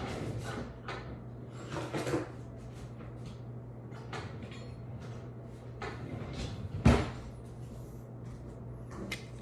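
Knocks and rustling of kitchen cupboards and drawers being opened and shut, with one sharp knock about seven seconds in. A steady low hum runs underneath.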